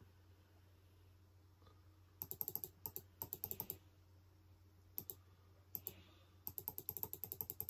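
Laptop keyboard typing in quick bursts of key clicks. It starts about two seconds in, pauses briefly in the middle, then picks up again near the end, over a faint steady low hum.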